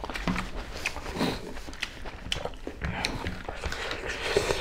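People eating rice and curry by hand: chewing and mouth smacking with irregular small clicks and wet smacks.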